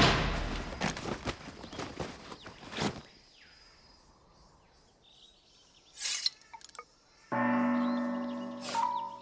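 Cartoon sound effects: a rapid flurry of slashing and clattering impacts that dies away over the first three seconds as the training dummies fall apart. After a quiet stretch and a short sound about six seconds in, a struck gong-like bell rings out and slowly fades.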